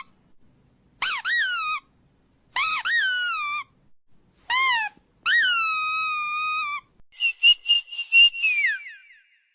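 A series of high-pitched, squeaky whistle-like calls: four separate calls, each rising sharply and then sliding down, the last one held for over a second. They are followed by a quick string of short chirps over a steady high tone.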